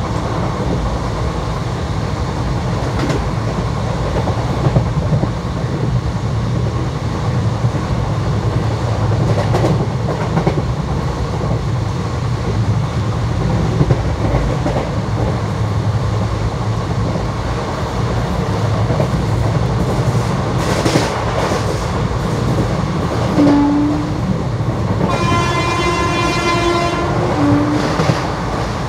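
Indian Railways ICF passenger coach running at speed: a steady rumble with the clickety-clack of wheels over rail joints. Near the end a train horn sounds: a short low toot, then a brighter blast of about two seconds, then another short toot.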